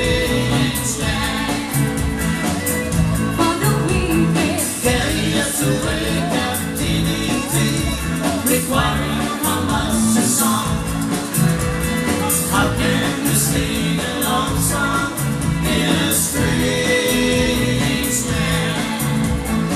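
Live band playing with electric guitar, bass and a steady drum beat.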